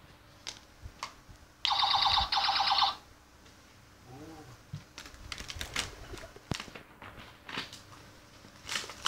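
Toy packaging being opened and handled: scattered clicks and crinkles, with one loud, rapid rasping burst in two short parts about two seconds in.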